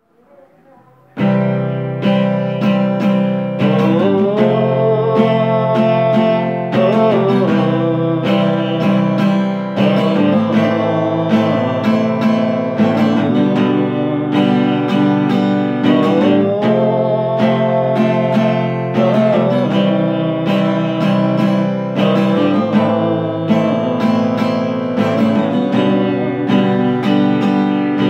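Acoustic guitar strummed in a steady rhythm of chords, starting about a second in.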